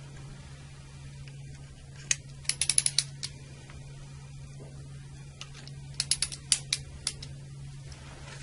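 Hub of an Eaton Series NRX circuit breaker's motor operator turned clockwise by hand, ratcheting through its mechanism in two runs of quick sharp clicks, about two seconds in and about six seconds in, as it is brought round to its detent. A steady low hum runs underneath.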